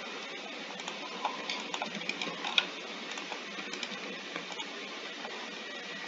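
Scattered light clicks and taps of a computer mouse and keyboard over a steady background hiss, with one sharper click about two and a half seconds in.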